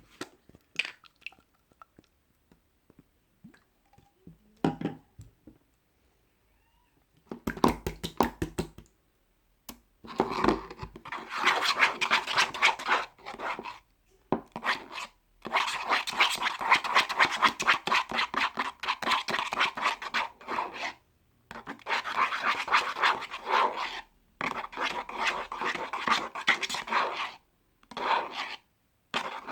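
A dog panting rapidly close to the microphone, in long spells broken by short pauses, starting about seven seconds in. Faint scratching and rustling come before it.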